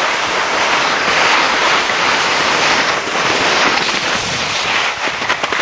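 Steady, loud crackling rush of skis sliding over hard snow.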